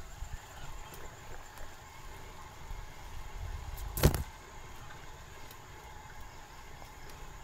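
Mountain bike riding on a trail, heard as a steady low rumble of wind and tyres on the camera microphone with a few small rattling clicks, and one sharp knock about four seconds in.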